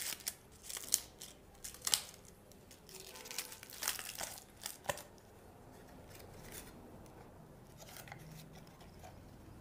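Crinkling and crackling of paper cocktail toppers being handled and a paper cocktail umbrella being opened: several sharp crinkles in the first five seconds, then only faint rustling.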